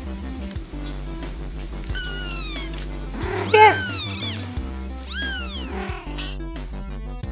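Bengal kitten meowing: three high calls that rise and fall in pitch, the middle one longest and loudest, over background music with a steady beat.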